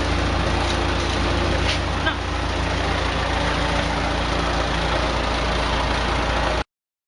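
Wood-gas generator's engine running steadily at idle, a constant low hum, cutting off abruptly near the end.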